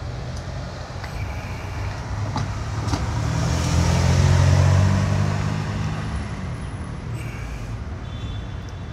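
A motor vehicle passing by: a low engine hum that swells to its loudest about halfway through, then fades away.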